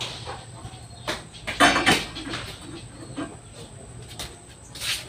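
A few knocks and a short rattling clatter of a metal frying pan being handled on a gas stove, the loudest about a second and a half in.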